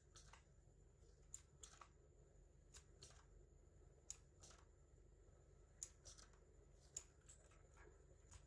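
Faint, irregular clicks of keys being pressed one at a time on a mechanical keyboard with blue switches, a click every half second or so, over a low background hum.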